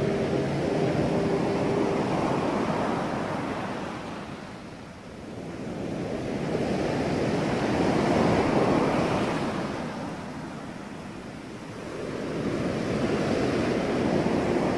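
Ocean surf: waves breaking and washing up the beach, the sound swelling and fading about every six seconds, three times over.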